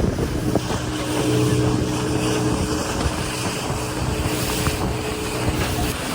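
Motorboat engine running at a steady pitch under a rush of wind and water. The hum fades out about six seconds in.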